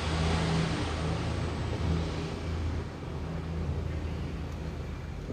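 Steady low mechanical rumble with a wavering hum, like a running engine.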